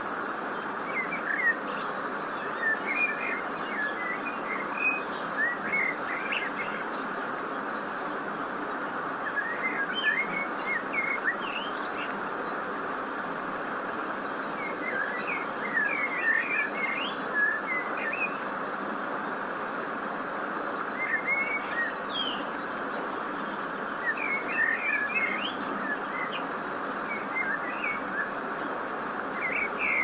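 Steady rush of Hyatung Falls, a 365-metre waterfall, with small birds chirping in short flurries every few seconds over it.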